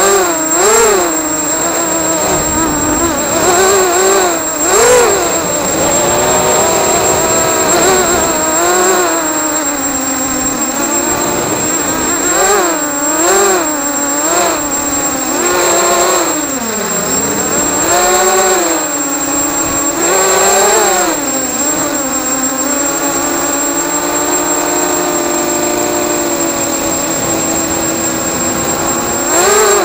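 The brushless motors and propellers of a ZMR250 racing quadcopter whine in flight, their pitch swooping up and down again and again with the throttle, heard from a camera mounted on the quad. A steady high-pitched tone runs underneath.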